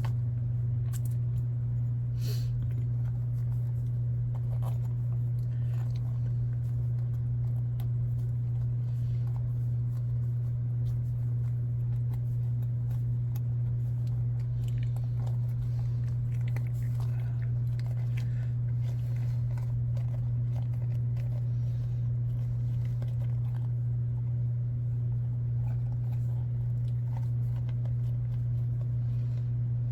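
A steady low hum underneath, with faint scattered clicks, scrapes and rubbing of small plastic and rubber parts being handled, as an RC wheel and tire are worked on by hand.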